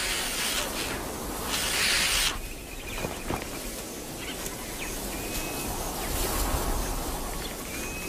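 A flock of ostriches bickering at the nest. There are two short bursts of hissing near the start, then quieter rustling, with a few faint chirps of small birds later on.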